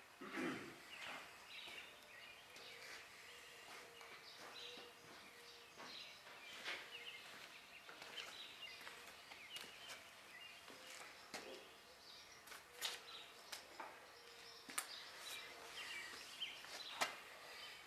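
Quiet background with faint bird chirps, scattered light clicks and a faint steady hum.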